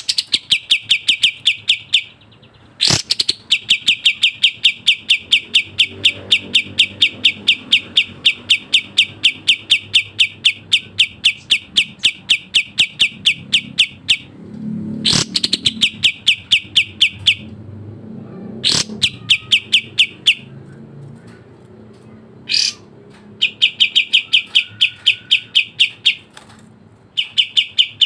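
Kapas tembak songbird singing its fast 'speed rapat' song: long runs of rapid, evenly spaced sharp chirps, about four to five a second. The runs break off briefly a few times, with a single sharp call between some of them.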